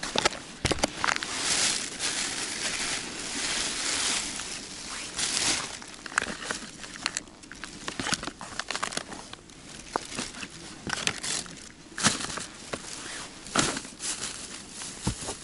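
Plastic bags and food wrappers crinkling and rustling as hands rummage through a plastic box, with scattered sharp clicks and knocks.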